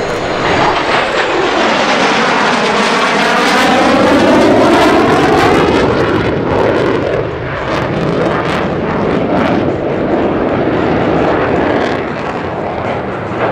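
F-16 fighter jets making a fast pass. The jet noise swells to its loudest about four seconds in, with a sweeping whine that falls in pitch as the jets go by. After that it turns to a rough, crackling rumble as they pull away.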